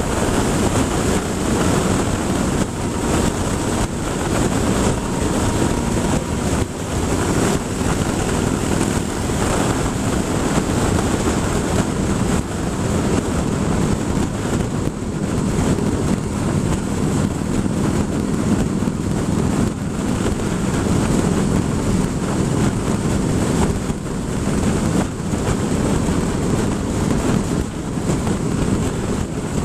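Steady wind rush on the microphone of a camera mounted on a moving motorcycle, with the motorcycle's engine running beneath it at a steady road speed.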